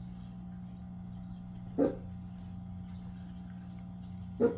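A pet dog barking twice, two short sharp barks about two and a half seconds apart, over a steady low electrical hum.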